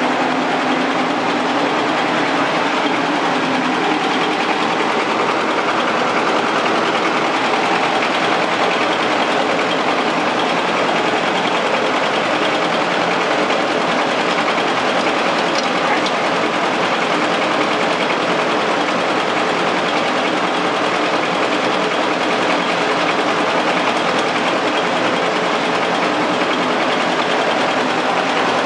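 Steady, loud running noise of a flatbed rice dryer's machinery, its blower and motors working without a break while the rice-hull furnace is fired.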